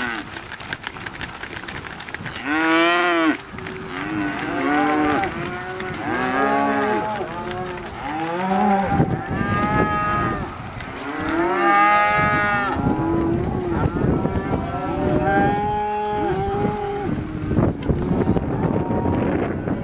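A herd of range cattle being driven, mooing one call after another, with several cows calling over each other at different pitches.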